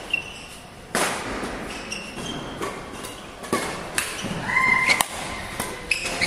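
Badminton rally: rackets striking the shuttlecock in several sharp, irregular hits, with short squeaks of shoes on the court floor between them.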